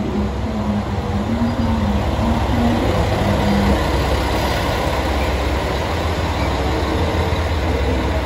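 Chizu Express HOT7000-series diesel multiple unit pulling into a platform at low speed: a steady, loud low rumble of its diesel engines and running gear. A wavering hum rides over it and fades out about three and a half seconds in.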